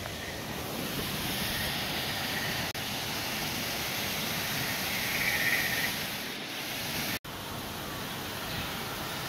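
Steady rush of water from a waterfall spilling over rocks into a pool, broken by two brief dropouts, a little under three seconds in and about seven seconds in.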